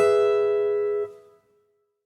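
Background music: a single held chord that stops abruptly about a second in, after which the sound drops out completely.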